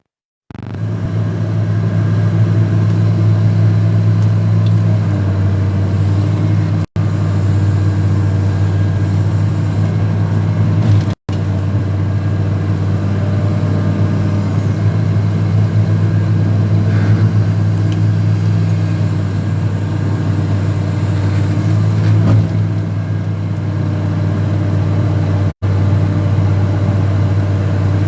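Excavator's engine running at a steady speed, its pitch easing down slightly about five seconds in. The sound cuts out abruptly three times for a split second.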